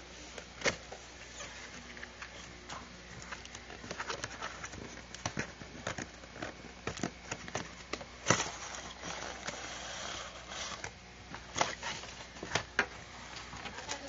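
Cardboard toy box being handled and its inner tray slid out: irregular taps, scrapes and rustles of cardboard and packaging, with a sharper knock about eight seconds in.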